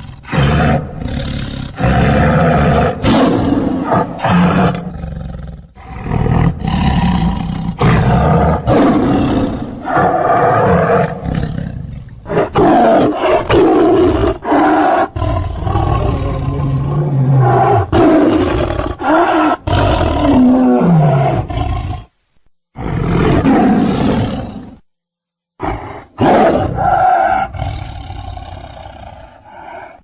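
Tiger roaring and growling loudly, one deep roar after another. In the last third the roars come shorter, with brief silences between them.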